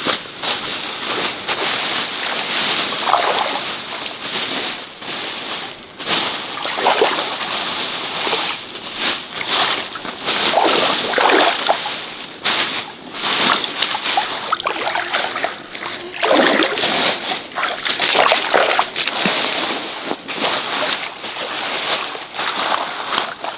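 Irregular splashing and sloshing of water in a shallow stream, over a steady high-pitched insect buzz.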